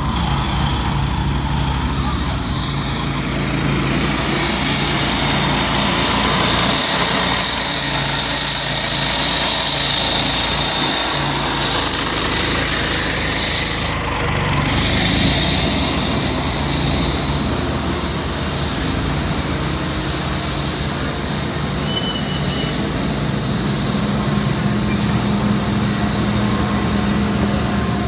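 Road roller engines running steadily with a low drone, under a loud high hiss that breaks off suddenly about halfway through.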